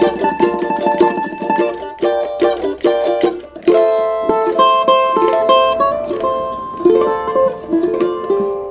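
Small steel-string plucked instrument playing samba: rapid strummed chords for about the first two seconds, then a melody of single plucked notes that ring out and fade at the end.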